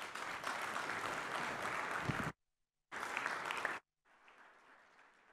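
Audience applause filling a large hall. It is cut off abruptly about two seconds in, comes back for about a second, then cuts off again, leaving only faint, fading room noise.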